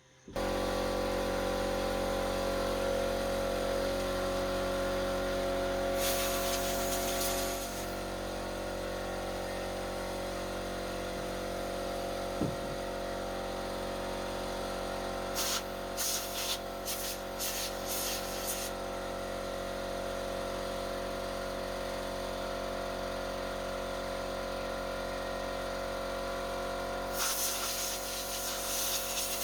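An electric air compressor running steadily, starting abruptly, with blasts of compressed air hissing from an air gun: a long blast at about six seconds, a string of short ones a few seconds later, and another near the end, blowing dust out of a chainsaw air filter.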